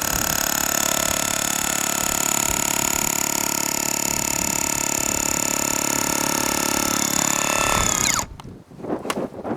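Makita cordless rotary hammer drill running steadily, then switched off about eight seconds in, its motor winding down with a falling whine. A few knocks and rustles follow.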